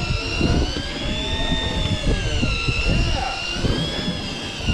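Electric fishing reel motor whining as it winds line in, its high pitch slowly rising and falling as the load changes, over a low rumble.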